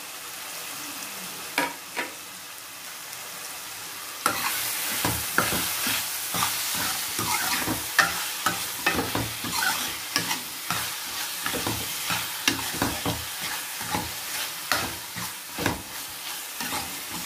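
Raw prawns frying and sizzling in an onion-tomato masala in a kadai, with a steel ladle scraping and clinking against the pan as they are stirred. The sizzle gets louder about four seconds in, and the stirring strokes come quickly from then on.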